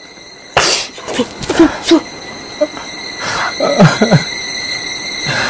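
A person's voice in short wordless outbursts, beginning with a sudden loud burst about half a second in, over a faint steady high electrical hum.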